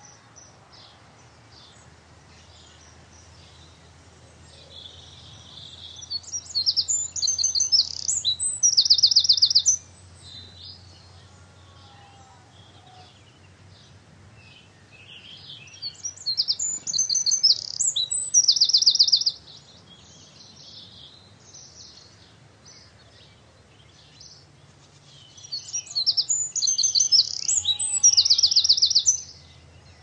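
A songbird singing the same song phrase three times, about ten seconds apart, each phrase ending in a fast, high trill of rapidly repeated notes.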